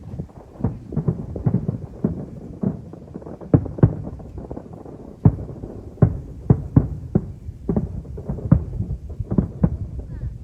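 Aerial fireworks exploding over a show, a rapid, irregular run of booms and cracks, two or three a second, with the loudest bursts in the middle.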